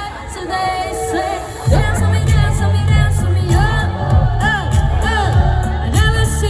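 Live pop song with a vocalist singing over amplified backing music. The bass comes in strongly about two seconds in.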